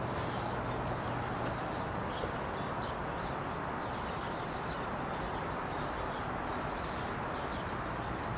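Steady background hum with small birds chirping over it throughout.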